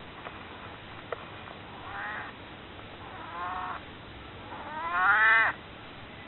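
An elderly cat, nearly 22 years old, meowing three times, each call louder and longer than the last, the third a drawn-out meow that rises and then falls: its cry begging to be picked up and held.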